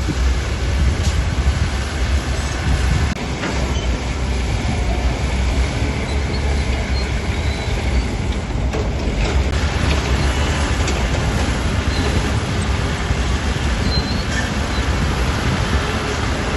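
Heavy diesel earthmoving machinery running steadily, with a deep engine rumble and some metal clatter.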